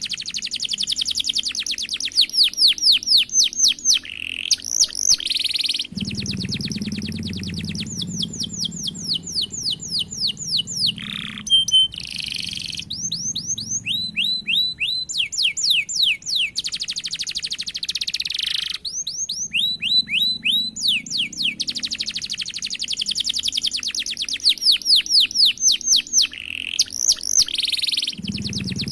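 Domestic canary singing in long, fast rolls: rapid runs of repeated falling notes, about ten a second, in phrases of a couple of seconds with brief breaks and a few single held notes between them.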